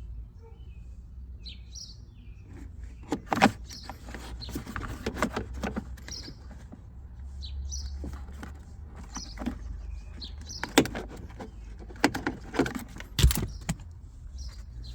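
Irregular clicks and knocks of the rear HVAC blend door actuator's plastic housing and connector being handled. Short, faint bird chirps recur in the background.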